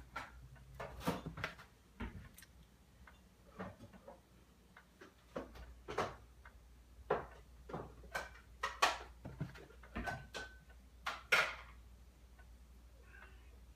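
Irregular series of sharp clicks, taps and clatters of dinner being prepared in a kitchen, some with a brief ring like a dish or utensil struck. The sounds stop near the end.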